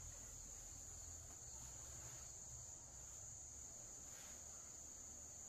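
Faint, steady, high-pitched trilling of insects, over a faint low rumble.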